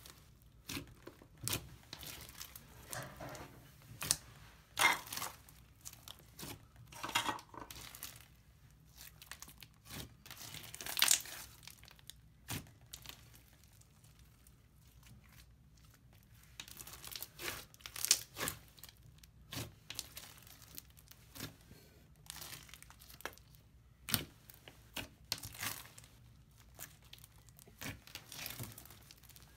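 Thick pink slime mixed with small beads being kneaded, stretched and pulled apart by hand: irregular crackling, tearing and sharp pops, with a quieter lull about halfway through.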